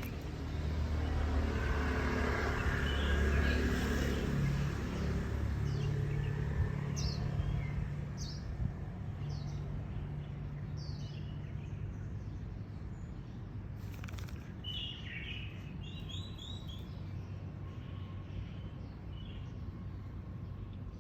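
A motor vehicle passes, its low engine hum swelling over the first few seconds and fading out. Then small birds chirp in short high calls, most thickly about two-thirds of the way through, over steady outdoor background noise.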